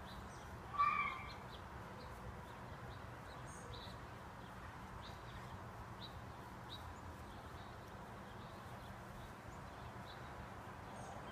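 Outdoor garden ambience with small birds chirping faintly and repeatedly, and one louder, pitched call about a second in.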